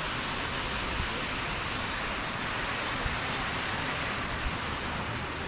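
Waterfall pouring out of the river tunnel, a steady rushing of water.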